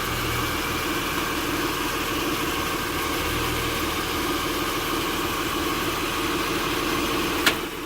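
2006 Acura TL's V6 idling in park while the steering wheel is turned, a low hum swelling twice, with a sharp click near the end. The click comes from the steering rack, which is binding internally.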